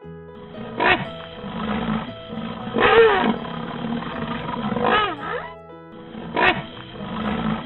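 Rhinoceros calling: four hoarse calls with bending pitch, about two seconds apart, the loudest about three seconds in, over steady background music.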